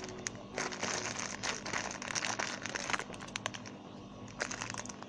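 Crinkling and rustling as squishy toys are handled, with many small irregular clicks throughout.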